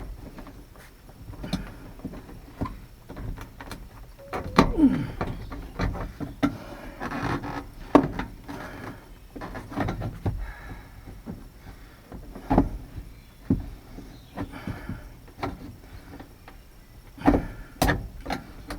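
Irregular clicks, knocks and scraping of hands and tools working a replacement outside door handle and its linkage into a pickup truck door, with a brief falling squeak about a fifth of the way in.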